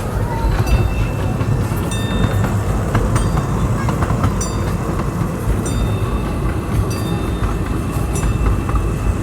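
Train running along the track: a steady low rumble with light clicks from the rails every second or so.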